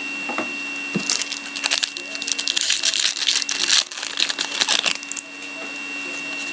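Foil wrapper of a hockey card pack being torn open and crinkled by hand: a dense crackle of crinkling that starts about a second in and stops about five seconds in.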